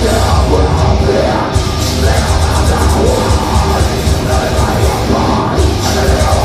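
Metal band playing live and loud: pounding kick drum and cymbals under distorted bass and guitars. The cymbals drop out briefly about a second and a half in and again near the end.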